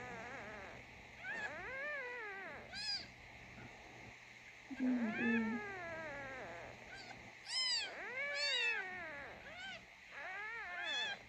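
Newborn kitten mewing repeatedly: about seven thin, high cries, each rising and then falling in pitch, some short and some drawn out. A brief low steady tone sounds about five seconds in.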